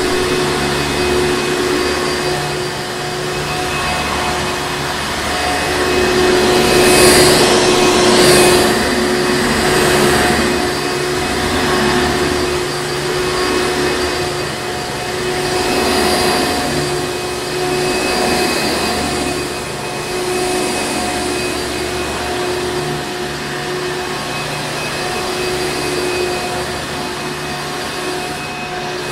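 Hoover Encore Supreme vacuum cleaner running continuously: a steady motor hum with a fixed whine over rushing air, and the airflow swelling and easing every few seconds.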